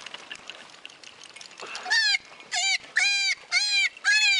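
Scratching and rustling as a wounded rabbit is pulled by hand from a hole under a rock. About two seconds in, a run of loud, high-pitched animal cries begins, about two a second.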